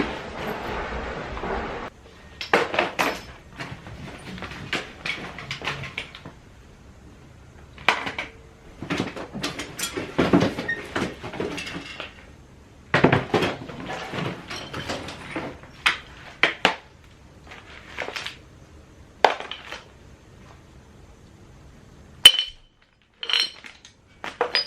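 Small hard objects clattering and clinking in irregular bursts as a container of loose odds and ends is rummaged through, with a few sharp single clinks near the end.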